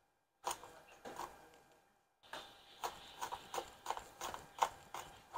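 Chef's knife chopping garlic cloves on a wooden cutting board: sharp knocks of the blade striking the board. A few strikes come first, then after a short pause a quicker, uneven run of about four a second.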